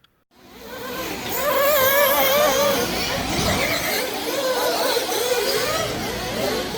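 Electric RC monster truck (Traxxas MAXX) being driven: the motor whines in a pitch that wavers up and down with the throttle, over a steady hiss. It fades in just after the start.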